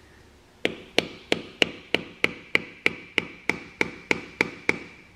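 A hammer tapping a screwdriver wedged between a Kubota B5100 cylinder bore and its worn sleeve: about fourteen even, light taps, roughly three a second, each with a short metallic ring. This drives the screwdriver in to split the old sleeve so it can be pulled out.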